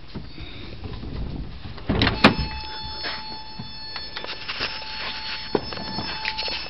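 An old Toyota Corolla being started on gasoline that sat in its tank for 16 years. About two seconds in comes a loud clunk and a sharp click, then a steady high-pitched whine with scattered clicks.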